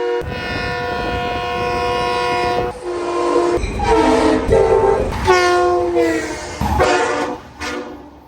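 Train horn sounding a long steady chord over the rumble of rolling wheels, then a series of shorter blasts that drop in pitch as the train passes, growing fainter near the end.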